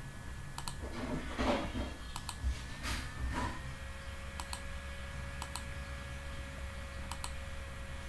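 Computer mouse clicking as points are placed one by one along a Google Earth measuring line: sharp double clicks, press and release, irregularly every second or two. A soft rustling noise about a second and a half in, over a faint steady hum.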